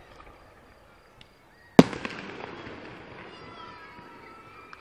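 A single loud aerial firework burst about two seconds in: a sharp bang, then a rumbling tail that slowly fades.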